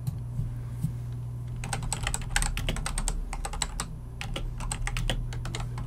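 Typing on a computer keyboard: a run of quick key clicks starting about a second and a half in, with a short break near the middle. A steady low hum runs underneath.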